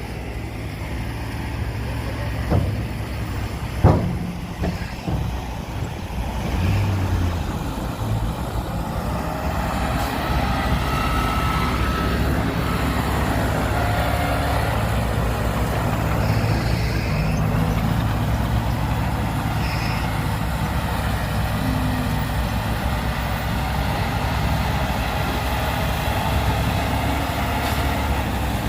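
Diesel engines of a bulldozer and dump truck running steadily at work, with a few sharp knocks in the first four seconds, the loudest about four seconds in.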